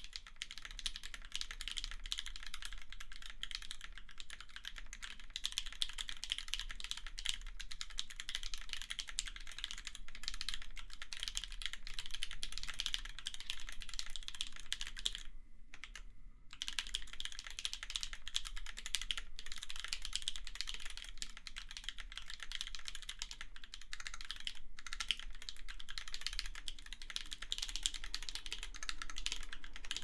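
Fast, continuous typing on an acrylic Alice-layout keyboard with an integrated 5 mm acrylic plate, lubed NovelKeys x Kailh Cream linear switches (Krytox 205g0, 72 g springs, switch films) and GMK Striker keycaps. It is a dense stream of key strikes, with a pause of about a second roughly halfway through.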